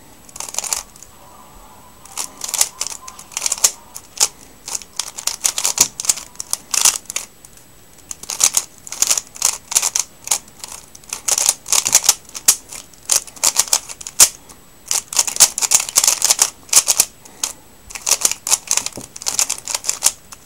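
MoYu Weilong 3x3 speedcube turned fast through a solve: rapid runs of plastic clicking and clacking as the layers snap round, broken by short pauses between move sequences. The cube is new and not yet lubricated.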